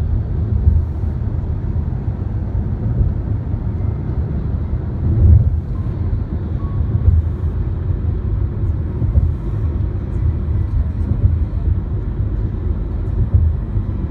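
Road and traffic noise from a moving car: a steady low rumble that swells briefly about five seconds in.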